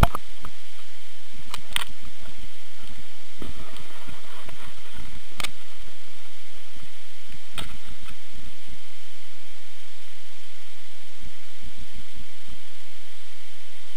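Wind buffeting a small camera's microphone, an uneven low rumble over a steady hiss, with a few sharp handling clicks.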